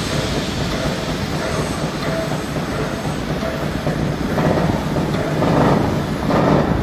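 Steam locomotive E 901 shunting with steam hissing, then slow, heavy chuffs about a second apart starting about four seconds in as steam blows from low at the front of the engine.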